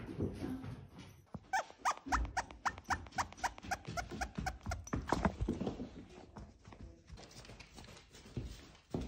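Barbet puppy whining in a quick run of short, high squeaks, about four or five a second, for about four seconds, with a dull thump near the start.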